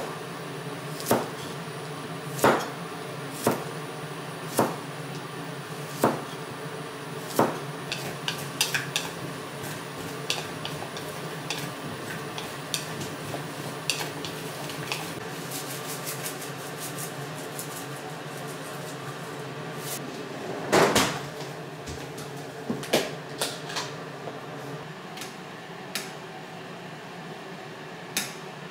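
A chef's knife chopping a cucumber on a plastic cutting board, a sharp knock about every second for the first several seconds, then lighter clicking and clatter of a utensil stirring in a plastic mixing bowl, with a louder cluster of knocks about three quarters of the way through. A steady hum runs underneath.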